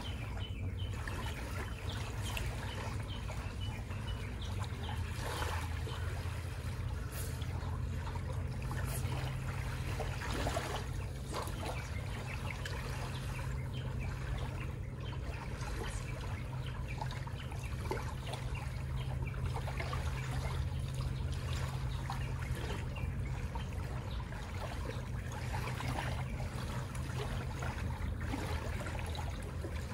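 Water lapping and trickling, with many small crackles and a steady low hum underneath.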